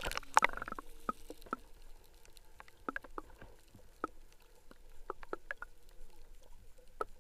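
Scattered light taps and clicks, a few each second, some with a short ring, over a faint steady hum.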